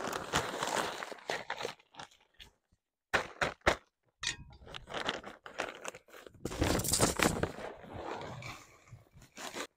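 Paper sack of ready-mixed gravel and sharp sand being handled and tipped into a plastic bucket: the sack crinkling and the gravel crunching and pouring in uneven bursts, with a few sharp clicks about three seconds in.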